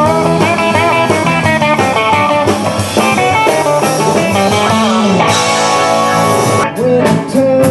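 Live rock band playing an instrumental passage: electric guitar over bass and drums, with cymbals. The music changes abruptly near the end.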